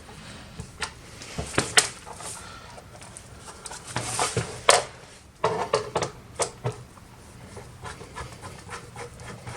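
Handling clicks, knocks and rattles from the back cover of a Lenovo ThinkCentre Edge 72z all-in-one PC being fitted and pressed closed, with a short scrape about four seconds in and a quick run of taps just after.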